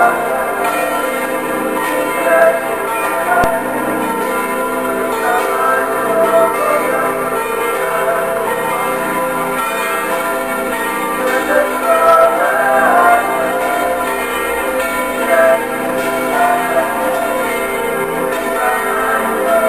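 Several church bells of an Orthodox church ringing continuously together, fresh strikes overlapping the ringing of earlier ones.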